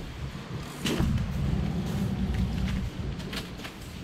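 Market background: a low steady rumble with a few sharp knocks and clacks, one about a second in and a couple more near the end.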